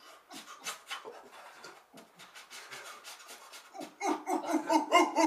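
A man panting rhythmically in quick breaths, which turn into louder voiced grunts about four seconds in.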